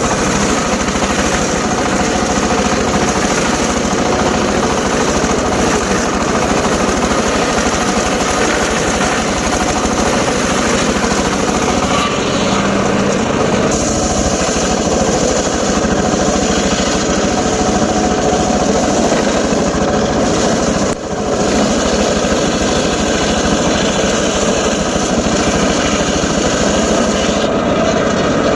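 Homemade table circular saw running steadily and cutting short lengths of teak wood, a continuous loud machine noise.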